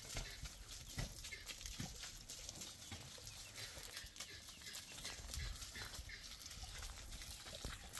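Farm animal noises, amid scattered short knocks and clicks.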